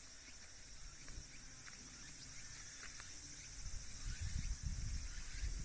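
Steady high-pitched chirring of an insect chorus. A low, irregular rumble grows louder over the last couple of seconds.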